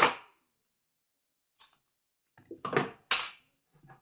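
Hard knocks and clatter of rotary hammer drill parts being handled during reassembly: one sharp knock at the start, then a short cluster of knocks near the end.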